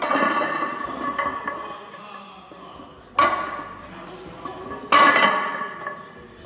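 Loaded barbell and iron plates clanking during barbell hip thrusts on a hip thrust platform: three sharp metal clanks, each ringing on for about a second.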